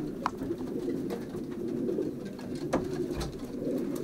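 Racing pigeons cooing steadily inside a small loft, with a few sharp clicks and knocks.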